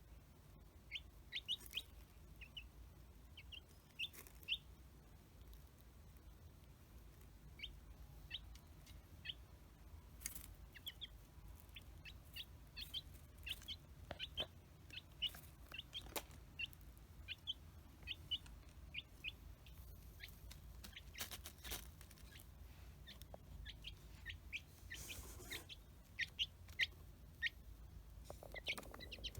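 Baby chick peeping: many short, high chirps, irregular and scattered, some in quick pairs or runs.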